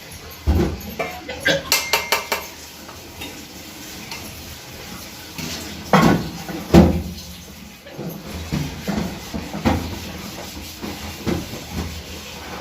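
Hard objects clattering and knocking, several with brief metallic ringing in the first two seconds. Two heavier thumps come about six and seven seconds in, then scattered lighter knocks.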